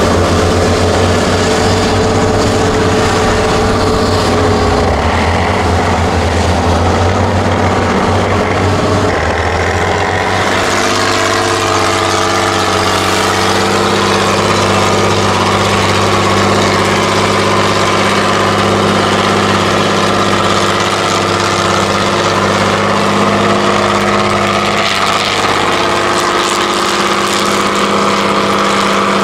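Heavy diesel engines of 8x8 off-road trial trucks running hard as they pull through mud, one truck and then another. The engine note changes about ten seconds in.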